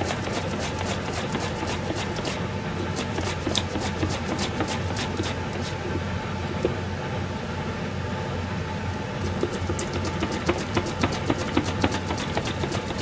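A turnip pushed back and forth over a handheld vegetable slicer: a run of short scraping clicks, one for each stroke across the blade, coming thicker and louder over the last few seconds, over a steady low hum.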